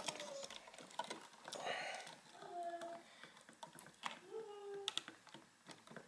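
Faint scattered clicks and light taps of hands handling a plastic electrical outlet at the wall box.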